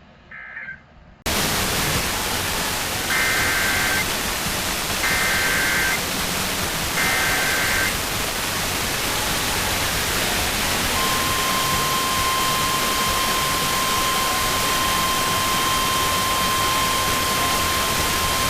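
Loud radio hiss cuts in suddenly. Over it come three short two-tone data bursts about a second apart, the SAME header of a NOAA Weather Radio alert. About halfway through, the steady 1050 Hz warning alarm tone starts and holds: the signal that opens a broadcast warning, here a severe thunderstorm warning.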